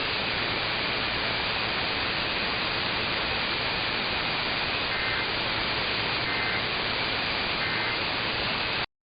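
Steady hiss of radio static from an off-air receiver capture, with a faint constant whistle. About five seconds in, three short faint data bursts about a second apart sound under the hiss, typical of the EAS end-of-message tones. The hiss cuts off abruptly just before the end.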